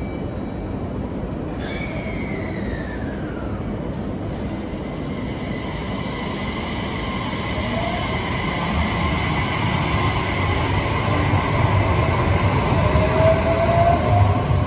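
JR Kyushu 817 series electric commuter train pulling away from the platform, with a short hiss about two seconds in. Its motor whine then rises in pitch as it gathers speed, over a rumble of wheels on rail that grows louder toward the end.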